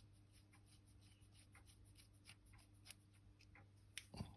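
Faint scratching and small clicks of a fine-bladed screwdriver prying at the dial of a VDO quartz clock movement, over a low steady hum. A couple of slightly louder clicks come about four seconds in.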